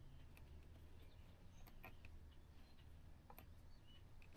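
Near silence with a few faint clicks and ticks from fingers handling a small plastic lever-type wire connector (Wago) on a stripped wire, and one sharper click at the very end.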